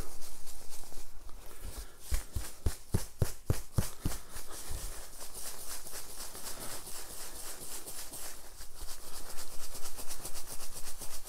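Paper draw slips rattling and rustling inside a top hat as it is shaken, a quick run of dry ticks, with a few heavier knocks about two to four seconds in.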